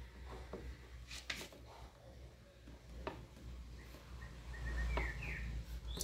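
Knife blade slitting the rubber sheath of a washing machine power cord against a wooden block: a few faint clicks and scrapes.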